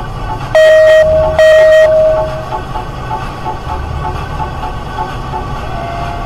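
Electronic music with a steady beat. About half a second in come two loud, horn-like blasts, each about half a second long. The second leaves a single tone ringing on for a moment.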